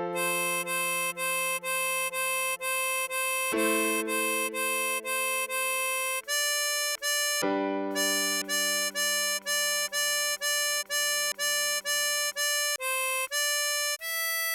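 Tremolo harmonica playing a slow melody, a new note about every half second over longer held lower notes, with a short break about halfway through.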